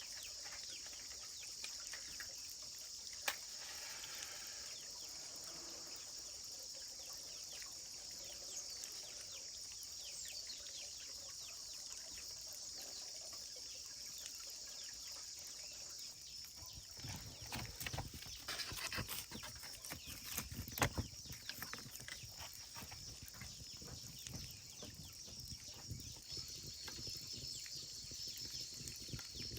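Rural outdoor ambience: a steady, high-pitched insect drone with occasional farm-animal calls. Scattered clicks are heard throughout, and a cluster of clattering knocks and thumps comes a little past halfway.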